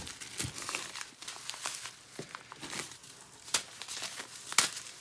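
Plastic packaging and bubble wrap crinkling and rustling as items are handled in a cardboard box, with irregular sharper crackles, the loudest about four and a half seconds in.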